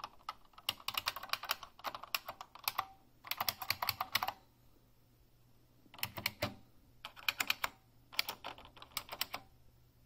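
Typing on a Unicomp Ultra Classic keyboard, its buckling-spring switches giving a substantial, clicky click with each keystroke. The typing comes in several quick runs, with a pause of about two seconds in the middle.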